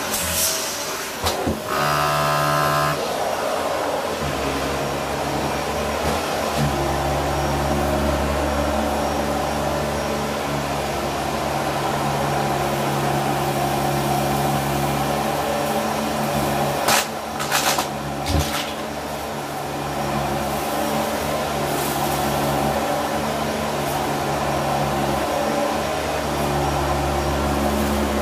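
Dyson upright vacuum cleaner running steadily, its motor hum shifting in pitch every few seconds, with a few sharp knocks a little past the middle.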